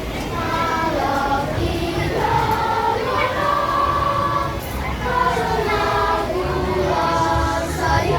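Children's choir singing phrases of long held notes.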